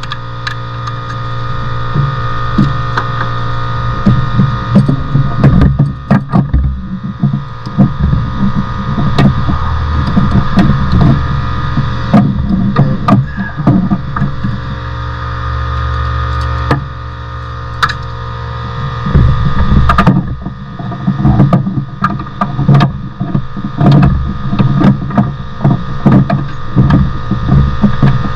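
Hand tools working on metal: irregular clicks, knocks and clanks, like wrenches on bolts, over a steady electrical hum.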